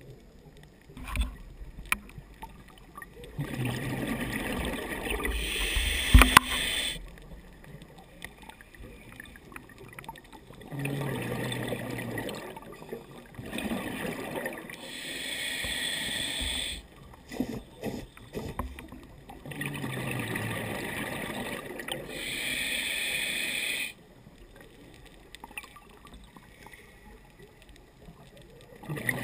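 Scuba diver breathing through a regulator underwater: slow breaths, each a hiss through the demand valve and then a rush of exhaled bubbles, with quiet gaps between. A sharp knock about six seconds in.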